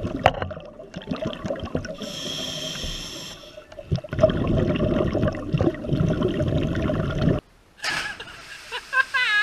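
Scuba diver breathing through a regulator underwater, exhaled bubbles gurgling around the camera housing, with a brief hiss about two seconds in. It cuts off suddenly about seven seconds in, and a short voice-like sound follows near the end.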